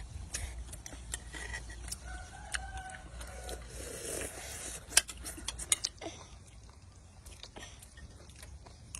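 Scattered sharp clicks and light knocks, the loudest about five seconds in, with a few faint short pitched calls in the first half.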